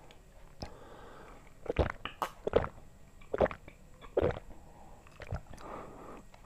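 Someone drinking iced orange juice from a glass, with a series of about five loud gulps a little under a second apart.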